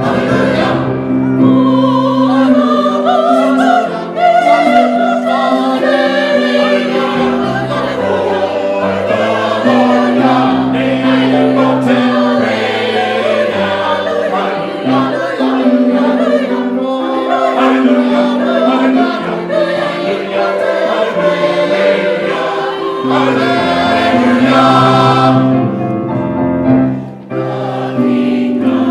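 A choir singing a hymn-like Christmas song with instrumental accompaniment of steady held bass notes, continuous throughout.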